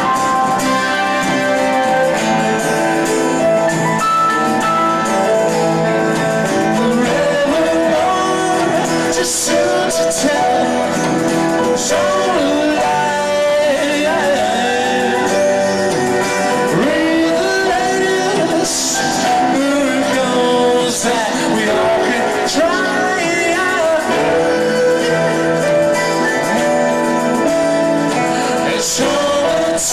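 Live rock band playing, with keyboards, drums and guitars, and a lead line that bends up and down in pitch through the middle.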